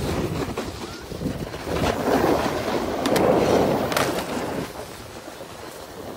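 Wind rushing on a phone microphone while riding, with snowboard edges scraping across groomed snow; the rush swells twice in the middle. A short sharp knock comes about four seconds in, as a board meets a box feature.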